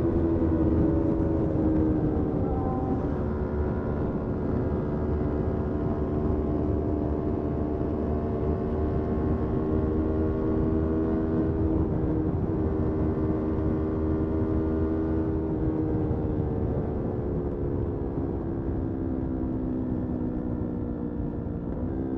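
Motorcycle engine running under way at fairly steady revs over a low, steady rumble. Its pitch dips a little about two seconds in, sags slowly through the second half, then rises sharply right at the end.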